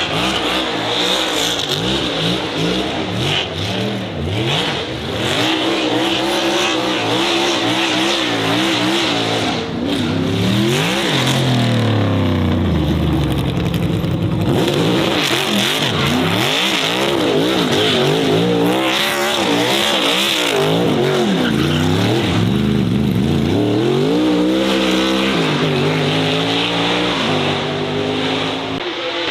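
Racing car engine at high revs, its pitch repeatedly climbing and dropping as it accelerates and backs off, with a long fall in pitch about eleven seconds in.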